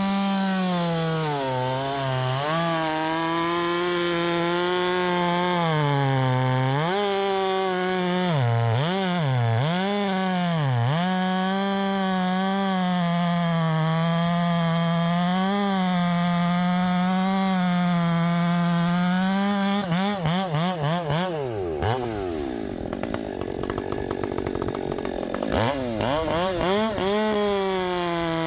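Husqvarna 564XP two-stroke chainsaw with a 32-inch bar cutting spruce at full throttle. The engine pitch sags again and again as the chain loads up in the cut, then recovers. About three quarters of the way through the revs drop and waver for a few seconds, then climb back up.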